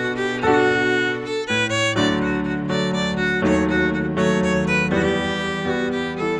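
Fiddle and digital piano playing a waltz together, the fiddle bowed.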